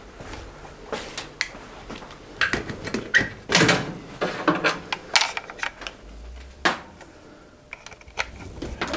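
Hands handling a plug-in EcoTracker radon monitor and its power cord while setting it up: a string of clicks and knocks with a few louder clatters, the loudest about three and a half seconds in.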